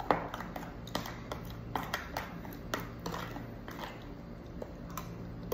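A spoon stirring açaí mixed with tapioca flour in a plastic tub, making irregular clicks and scrapes against the container. The sharpest click comes right at the start.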